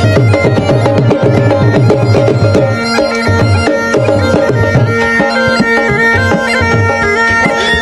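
Music: a steady drum beat under a melody of held notes, with a low drone note coming in about three seconds in.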